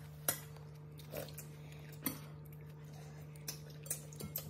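A person eating porridge: slurping from a spoon and bowl, with a few sharp clinks of the metal spoon and chopsticks against the ceramic bowl, over a steady low hum.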